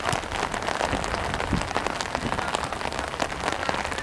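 Rain falling steadily, a dense patter of many small drop ticks.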